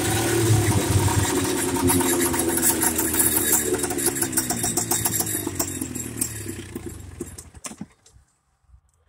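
Golf cart's 440 cc two-stroke engine running as the cart is driven, its pitch slowly sinking and fading, then dying out with a couple of sharp knocks near the end.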